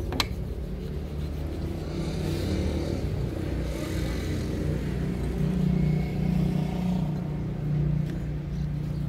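An engine running steadily, a little louder for a few seconds past the middle. A single sharp click comes just after the start.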